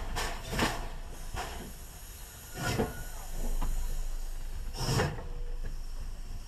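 JS class 2-8-2 steam locomotive rolling slowly past at close range: a couple of exhaust beats at first, then heavy knocks from the passing tender and running gear, the second near three-quarters of the way through, over a low rumble and a light steam hiss.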